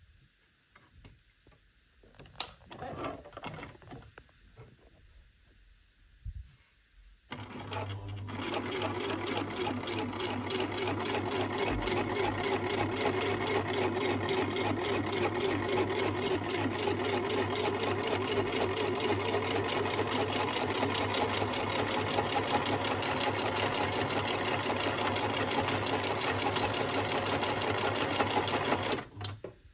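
A few light clicks and knocks, then, about seven seconds in, a Husqvarna 2000 (model 6430) sewing machine starts and runs steadily at speed with a fast, even stitching rhythm over a motor hum, freshly oiled. It stops shortly before the end.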